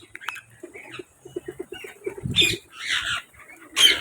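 Parrot squawking: three harsh calls in the second half, the last the loudest, after a run of lower, evenly pulsed sounds.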